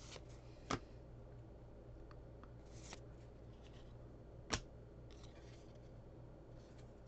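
Cardboard trading cards being slid and flipped through a stack by hand. The handling is quiet and rustling, with two sharp snaps, one just under a second in and one at about four and a half seconds.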